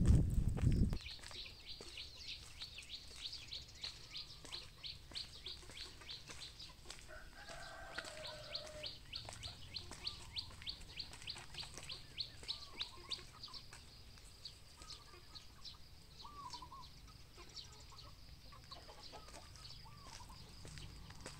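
Village morning ambience: a rooster crows once in the distance, small birds chirp, and a fast high-pitched pulsing chirp of several pulses a second runs through most of it. A loud low rumble on the microphone cuts off about a second in.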